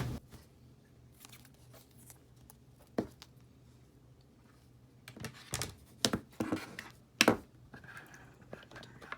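Small clicks, taps and scrapes of tools and iPhone 6 parts being handled while components are moved from the old screen to the new one: one sharp click about three seconds in, then a run of short taps and scrapes about five to seven seconds in.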